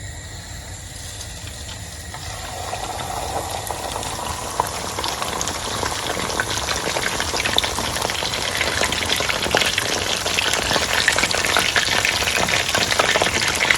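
Cornstarch-coated whole chicken shallow-frying in hot oil in a pan, sizzling and crackling. The sizzle builds over the first few seconds, then holds as a dense crackle.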